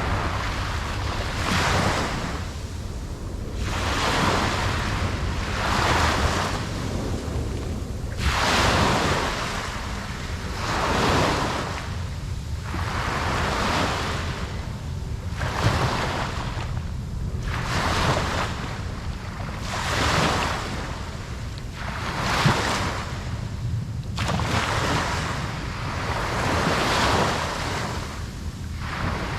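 Ocean waves breaking and washing on a beach, one surge of surf every couple of seconds over a steady low rumble of wind.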